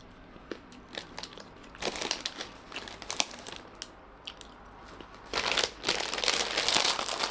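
Crunchy snack fries being bitten and chewed, with scattered crunches and clicks. Near the end comes about two seconds of loud crinkling from the snack bag being handled.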